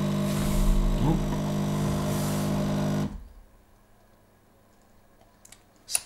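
De'Longhi Dinamica Plus espresso machine's pump humming steadily through the end of a single espresso shot, with two short hisses, then cutting off about three seconds in as the shot finishes. A few faint clicks follow.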